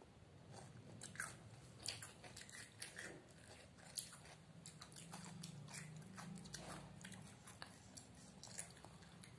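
Faint crunching and chewing of cucumber slices, with irregular crisp bites a couple of times a second.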